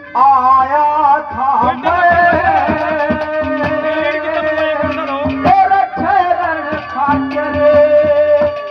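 Haryanvi ragni music played live: a sliding, ornamented melody line over a held low drone and quick hand-drum strokes.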